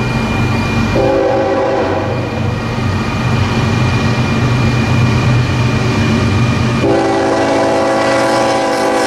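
Union Pacific freight locomotive's air horn sounding at a grade crossing: a short blast about a second in, then a long blast starting near the end, the close of the standard long-long-short-long crossing signal. The locomotives' diesel engines rumble steadily underneath.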